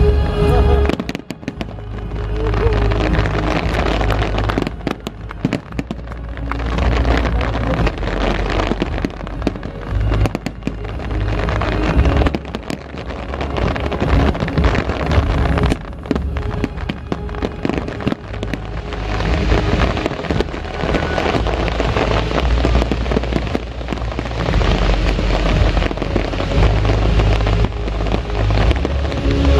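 Fireworks display: aerial shells bursting with deep booms and a dense crackle of many small pops, with the show's music underneath. Steady musical notes are plainest at the start and again near the end.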